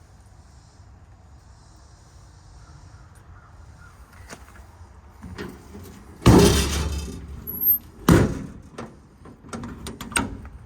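Metal compartment door on a Knapheid service truck body being unlatched and opened: a loud scraping clatter about six seconds in, a sharp bang about two seconds later, then several small clicks.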